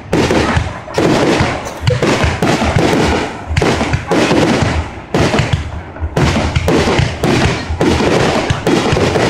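Fireworks display: aerial shells bursting in rapid, overlapping salvos, a near-continuous barrage of bangs and crackling with only brief lulls.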